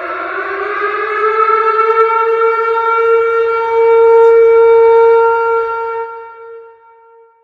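Tornado warning siren sounding one cycle. It rises slowly in pitch over the first few seconds into a steady wail, loudest about four to five seconds in, then winds down and fades out near the end.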